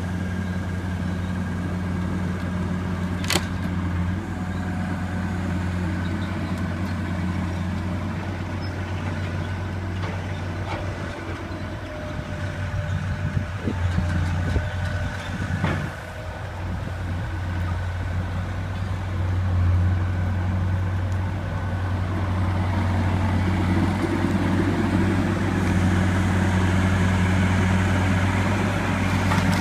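Skid steer engine running at a steady speed. There is a sharp crack about three seconds in and a stretch of uneven, louder noise around the middle, and the engine gets louder toward the end.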